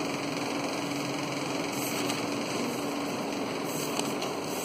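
A steady machine-like hum and hiss of room noise with a low steady tone, and a few faint taps of chalk on a blackboard as a formula is written.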